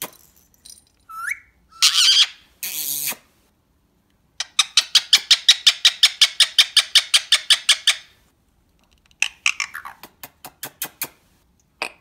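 Indian ringneck parakeet calling: a short rising chirp, then two harsh squawks about two seconds in, then a fast run of sharp repeated notes, about nine a second, for some three seconds, and a few more spaced notes near the end.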